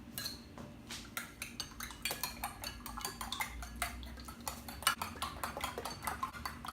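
Beating three raw eggs on a plate with a utensil: rapid, irregular clinks of metal against the plate, several a second.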